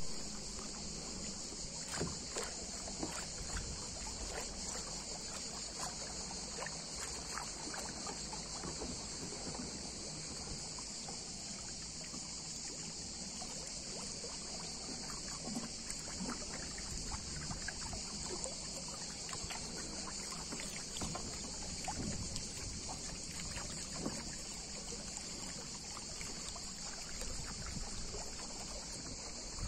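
Water splashing and lapping against a small sit-on-top kayak as it moves across a lake, with irregular small splashes, over a constant high-pitched buzz of cicadas.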